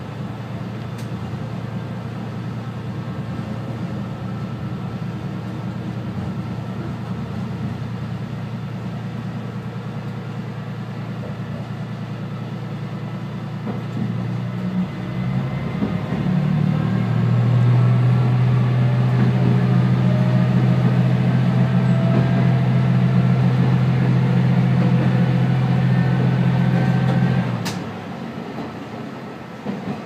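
Diesel railcar (JR West KiHa 120) running along the line, its engine and drive giving a steady low hum. About halfway through it grows louder with a faint whine slowly rising in pitch as it gathers speed, then drops back suddenly near the end.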